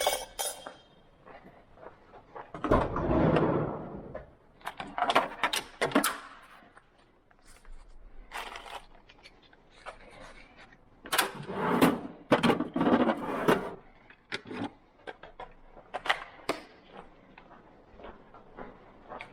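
Intermittent clicks, knocks and short scraping bursts of tools working on a fire door's metal latch and strike plate, with no steady motor sound.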